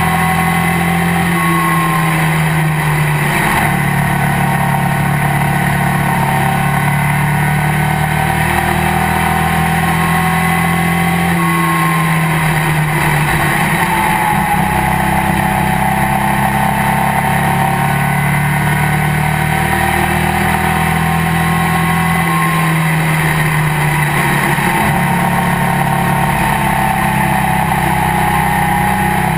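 Race car engine heard from inside the cockpit, running hard without a break. Its note dips and climbs again about every ten seconds as the car works through the turns, with wind and road noise rushing past.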